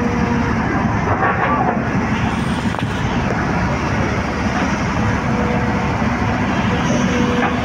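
Tracked hydraulic excavator's diesel engine running steadily under load while it digs a road trench.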